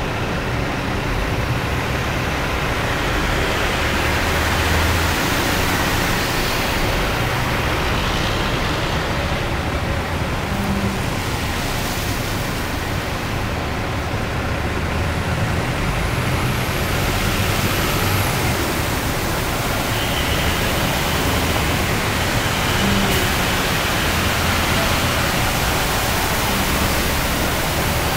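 Semi-trucks and cars driving through floodwater on a freeway: a steady rush of tyres throwing spray, with the engines of passing vehicles, swelling and easing as each one goes by.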